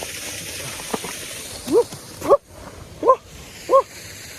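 A dog barks four times in the second half, short sharp barks about two-thirds of a second apart.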